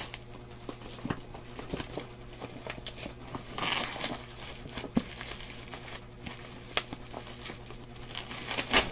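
Bubble wrap and cardboard packaging being handled and pulled apart by hand, crinkling and rustling with scattered small clicks. There is a louder rustle about three and a half seconds in and a sharp snap near the end.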